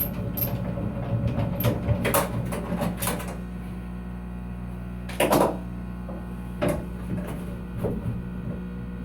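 Clicks, knocks and rattles of an old bathroom exhaust fan's motor assembly being unfastened and pulled out of its housing by hand, busiest in the first few seconds with one louder knock about halfway through, over a steady low hum.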